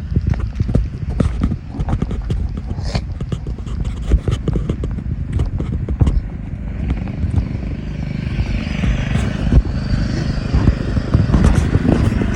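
Craftsman riding lawnmower engine running, with frequent sharp knocks and clattering throughout; the engine grows louder over the second half.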